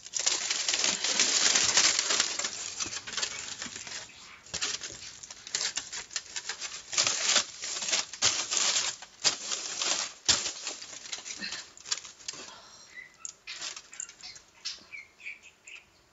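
Aluminium foil being crumpled and crinkled by hand: loud and dense for the first few seconds, then in separate crackles that thin out toward the end.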